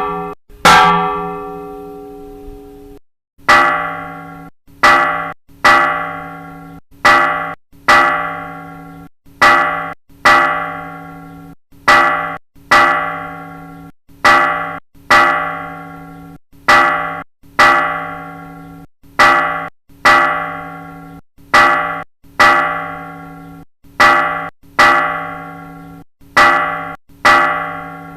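A church bell of the Old Cathedral of Santa María, Vitoria, struck over and over, each stroke ringing out and dying away. One stroke sounds right at the start, then a pause of about two and a half seconds, then a steady run of strokes about one every three-quarters of a second, all on the same pitch.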